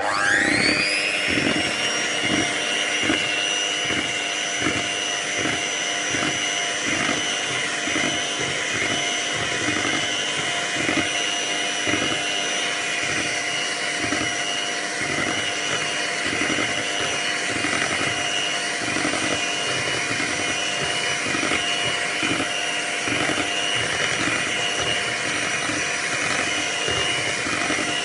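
Electric hand mixer switched on, its motor whine rising quickly as it spins up, then running steadily as its beaters whisk flour into cake batter.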